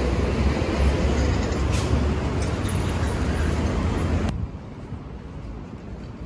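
City street traffic noise, loud, with a low rumble of passing vehicles; it cuts off suddenly about four seconds in, leaving a quieter street hum.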